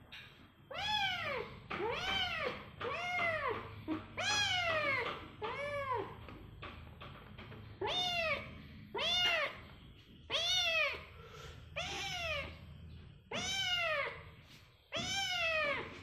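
A kitten meowing over and over: about a dozen high meows, each rising and then falling in pitch, with a short pause about halfway through.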